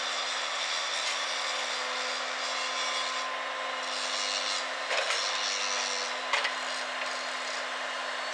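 Kenworth C500 log truck's diesel engine running steadily with a constant low hum, and two short knocks about five and six seconds in.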